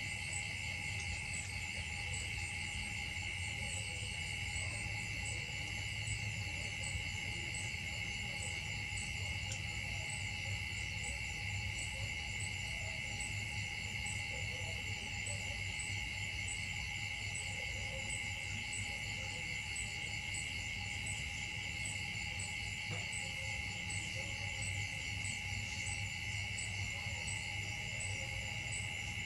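Steady, high-pitched chorus of insects, with a faster pulsing trill layered above it and a low rumble underneath.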